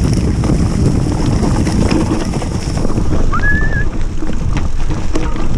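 Mountain bike ridden fast down a dirt trail: wind buffeting the camera microphone over rumbling tyres and quick rattles and knocks from the bike. A brief high squeal sounds about three and a half seconds in.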